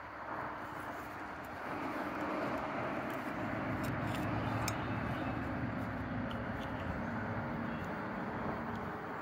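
Steady motor noise of a vehicle running, growing louder about two seconds in and then holding, with a few faint clicks over it.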